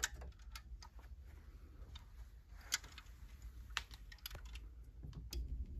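Bang & Olufsen Beogram RX 2 turntable being started: a click as its play button is pressed, then about half a dozen scattered mechanical clicks from the automatic play mechanism bringing the tonearm to the record, the loudest nearly three seconds in.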